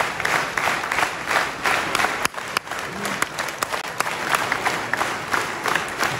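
Concert audience applauding, a dense sustained clapping with a few sharper, louder single claps standing out.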